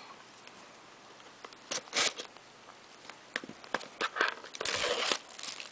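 Plastic wrapping on a trading-card box being crinkled and torn open by hand: a short crackling burst about two seconds in, scattered clicks, and a longer rustle near the end.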